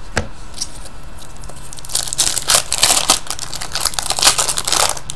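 Plastic wrapper of a hockey card pack crinkling while the cards are handled and flipped through, in a run of rustling bursts from about two seconds in until near the end.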